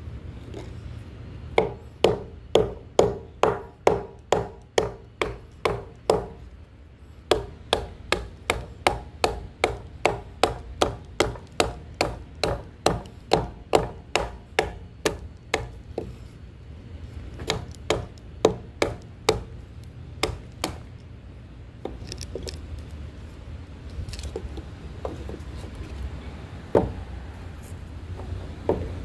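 Batoning: a wooden baton knocks on the spine of a Cold Steel knife, driving the blade into a piece of wood. The knocks are sharp and come in steady runs of about two to three a second, with short pauses, and turn to a few scattered strikes in the last few seconds.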